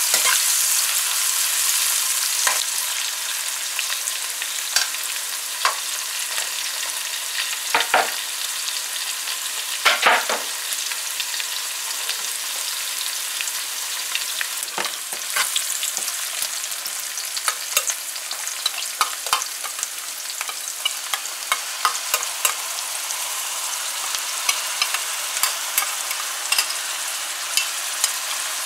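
Sliced onion and scallions sizzling in hot oil in a non-stick pan, a steady hiss that eases a little after the first few seconds. A metal spoon stirring them makes scattered sharp clicks and scrapes against the pan, more of them in the second half.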